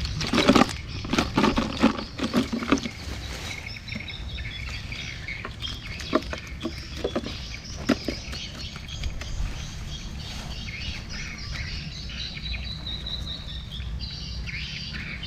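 Sharp knocking and rustling in the first few seconds, then scattered clicks, from fish traps and their catch being handled at the water's edge. Birds chirp in the background.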